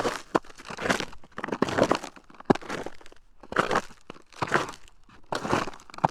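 Footsteps walking through snow, each step a crunch of packed snow, about one step a second at a slow, steady pace.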